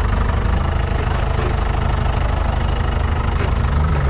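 A 4x4 jeep's engine runs steadily at low revs while the jeep creeps over rocks on a muddy trail, with a brief rise in revs near the end.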